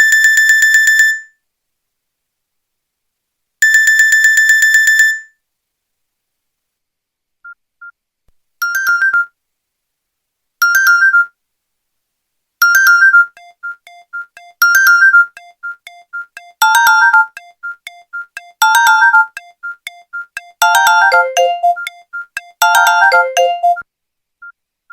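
Nokia N95 ringtones. A buzzy, trilling phone-ring tone sounds twice. After a pause a different ringtone starts: a synthesized melody of short bright notes in phrases repeating about every two seconds, building up with added lower notes.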